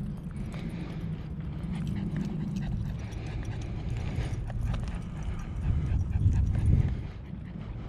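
Footsteps of a person walking on a paved asphalt path, a regular tapping over a constant low rumble that swells louder about six seconds in.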